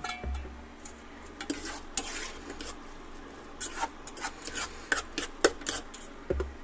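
Metal spoon scraping and clinking against a pan as food is stirred, in irregular short scrapes and clicks.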